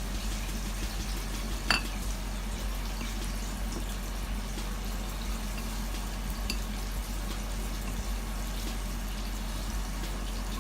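Battered chicken wings deep-frying in hot oil, a steady sizzle. There is one sharp click about two seconds in.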